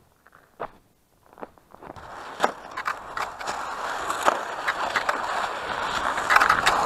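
Cross-country skis on a groomed snow track: a few separate crunching strides at first, then from about two seconds in a steady scraping glide of the skis in the tracks, with sharper crunches of pole plants on top.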